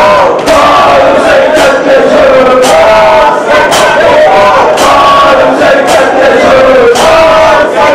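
A large crowd of men chanting a Muharram mourning chant together in unison, loud, with sharp beats at uneven intervals.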